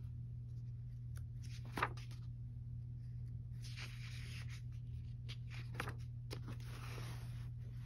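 Paper pages of a coloring book being turned: three soft swishing rustles with a couple of sharper flicks of paper, over a steady low hum.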